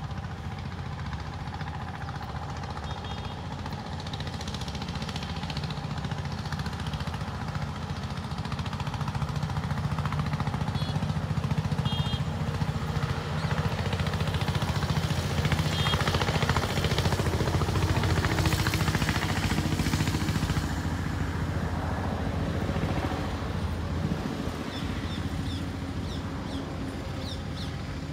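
A steady low mechanical rumble that swells louder through the middle and eases off near the end, with short bird chirps now and then.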